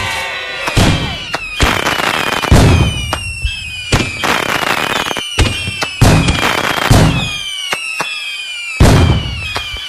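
Fireworks going off in a rapid series of loud bangs, about one a second, with high whistles falling in pitch between them.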